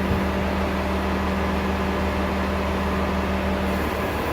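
Heavy equipment engine running steadily at idle, a constant low hum with a steady droning tone that drops away briefly near the end.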